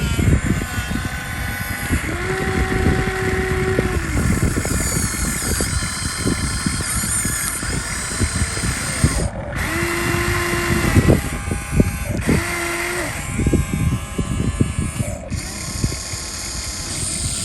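Radio-controlled model excavator working: a steady mechanical hiss with constant crackling, and a motor whine that comes in three times for a second or two at a time.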